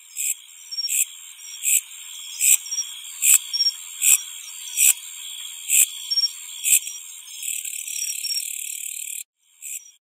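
High-pitched insect stridulation: a steady buzzing trill with louder chirps about every 0.8 seconds. Near the end it becomes a continuous buzz, stops suddenly, and one short burst follows.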